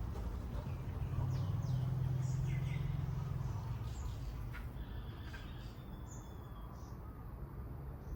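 Small birds chirping in a garden: scattered short high chirps, with one longer held note about halfway through. Under them runs a low steady hum, loudest in the first half.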